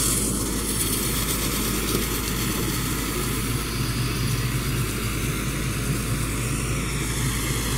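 Massey Ferguson 385 tractor's diesel engine running steadily under load while it drives a rear-mounted cutter through dry straw.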